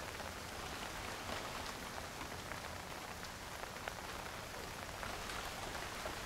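Steady rain falling, with scattered drips.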